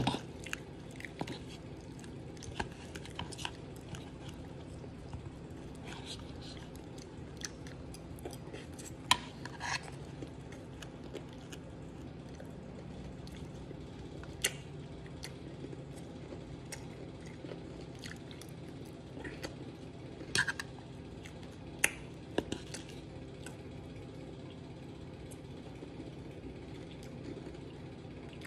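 Close-up eating: a man chewing a mouthful of ice cream with Oreo and snack-cake pieces, with scattered sharp clicks and mouth smacks now and then. A steady low hum runs underneath.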